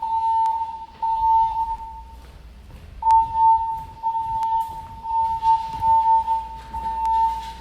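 Fire alarm sounding its alert tone between voice evacuation announcements, set off by a smoke detector test. A steady high-pitched tone repeats in pulses of about a second, each starting with a click, with a short break about two seconds in.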